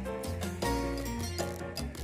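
Background music with a steady beat, bass line and melody.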